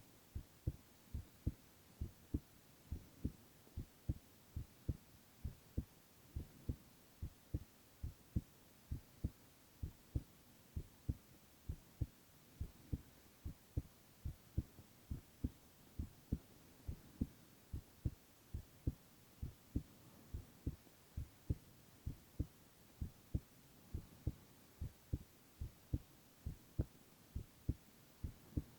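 A young man's heartbeat: steady, regular lub-dub thumps in pairs, a little over one beat a second, over a faint hiss.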